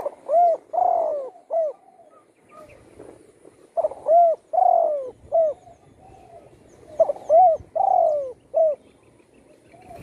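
Spotted dove cooing: three phrases about three seconds apart, each a short coo, a longer drawn-out coo and a short closing coo.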